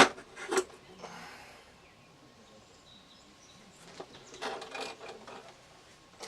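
Handling noises: a sharp knock at the start and another just after, then rustling about four and a half seconds in. Faint bird chirps come through in the quiet stretch between.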